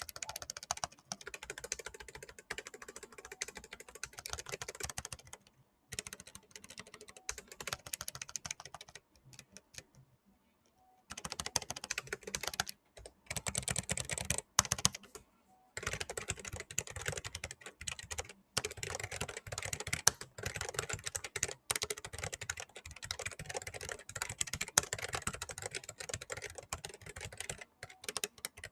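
Fast typing on a Riskeyboard 70, a 3D-printed hall-effect mechanical keyboard with lubed, broken-in switches: rapid runs of key clacks, with a pause of about two seconds near the middle.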